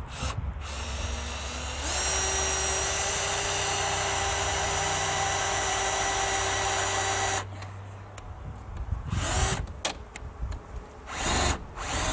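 Cordless drill-driver driving a self-tapping screw through a hook-up inlet's flange into the van's sheet-steel side panel. The motor whine speeds up about two seconds in, runs steadily for about five seconds, then stops. A few short bursts follow near the end as the screw is snugged down.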